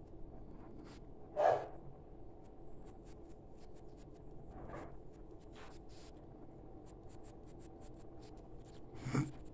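Pencil scratching on paper in short, quick strokes as fur is drawn: a run of faint, uneven scratches, a few of them louder than the rest.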